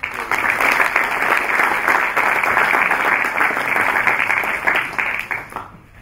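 Audience applauding: many hands clapping together, starting at once and dying away shortly before the end.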